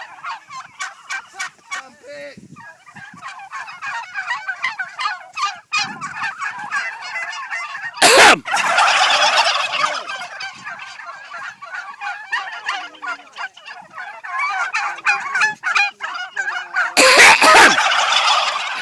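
Turkeys gobbling: many overlapping calls throughout, with two loud gobbles, one about eight seconds in and one near the end.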